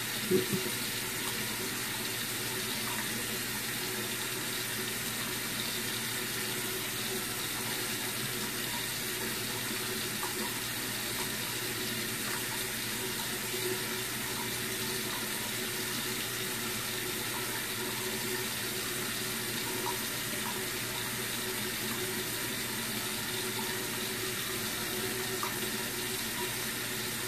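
Tap water running steadily into a sink, with the faint steady hum of an electric facial cleansing brush being worked over the face.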